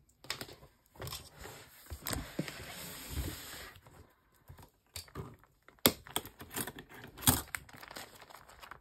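Clear plastic photocard sleeve pages in a ring binder rustling and crinkling as they are turned by hand, with scattered sharp clicks, the loudest about six and seven seconds in.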